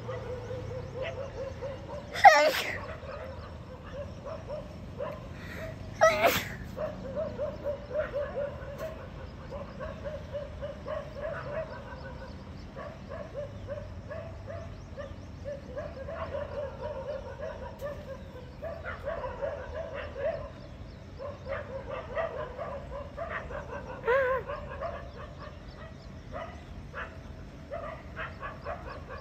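Animal calls: many short, repeated yelping and whining calls, with two louder, sharp calls about two and six seconds in.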